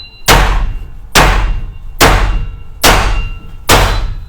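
Heavy bone-chopping cleaver struck hard five times in a steady rhythm, each chop with a clanging metallic ring.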